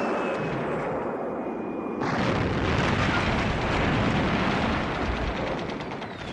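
Battle sound effects of exploding shells: a dense rumbling roar that gets louder and fuller about two seconds in. A faint, slowly falling high tone runs over it in the first two seconds.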